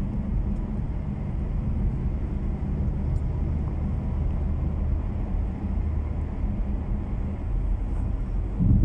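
Road and engine noise heard from inside a moving car's cabin: a steady low rumble of tyres and engine at cruising speed, swelling louder briefly near the end.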